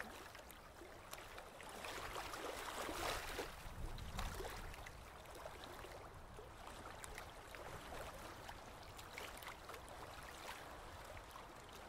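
Soft water ambience: a gentle, faint burbling wash with small ticks and pops. It swells briefly about three seconds in.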